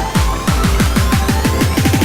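Electronic dance background music: a steady kick-drum beat with synth tones, the beat speeding up into a drum roll near the end.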